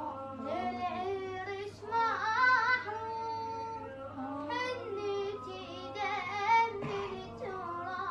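A boy singing an Arabic Husayni lament solo, with melismatic runs and ornamented glides between held notes.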